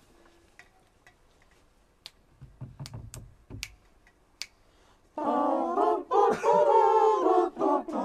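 Quiet at first with a few scattered sharp clicks. About five seconds in, loud singing by voices starts, wavering in pitch with a few short breaks.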